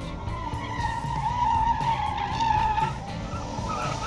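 Tyres of a car on an autocross course squealing under hard cornering, a wavering high squeal over the engine's rumble; the squeal eases off about three seconds in.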